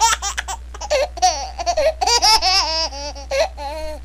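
A baby laughing: quick runs of high-pitched giggles, then longer squealing laughs that rise and fall in pitch, over a steady low hum.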